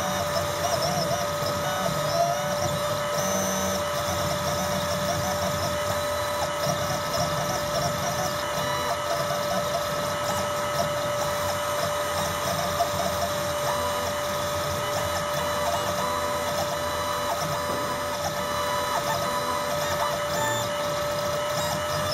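Desktop 3-axis CNC engraving machine running a job: a steady high whine from the spindle, with the stepper motors whining in short stretches that change pitch as the axes move. It runs continuously, much like a printer at work.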